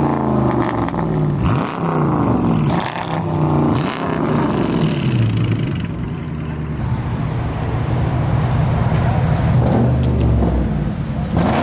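Car engine revved in about four quick blips, each rising and falling in pitch, then settling into a steady low idle rumble.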